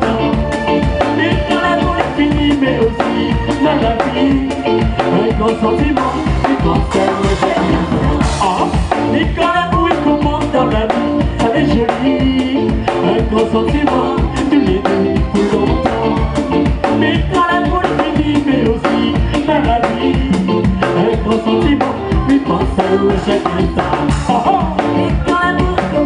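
Live band playing with drum kit, electric guitars and keyboard, with singers singing over a steady beat.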